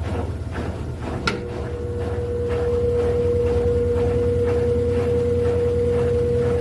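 Electrolux LED14 14 kg washing machine spinning: a low motor hum with faint regular knocks about twice a second, a click about a second in, then a steady whine that sets in and grows louder over the next two seconds before holding level.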